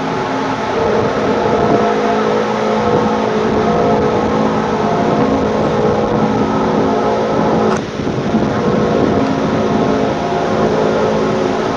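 Loud, drawn-out droning groan made of several steady overlapping tones, with one short click about eight seconds in. Its source is unknown to the recordist, who at first took it for a resonance in the mountains.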